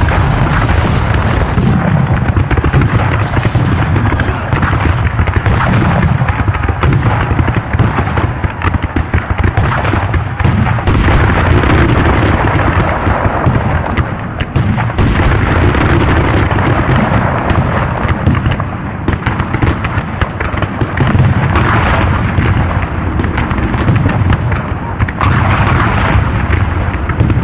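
Battle sound effects: dense, unbroken gunfire mixed with deep cannon booms.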